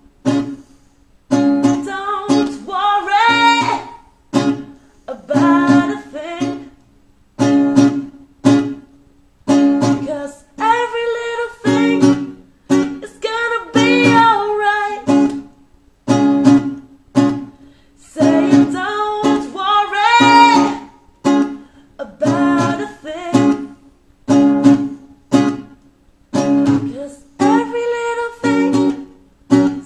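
Acoustic string chords strummed in short, choppy strokes with gaps between them, in a reggae rhythm, with a voice singing the melody over them at times.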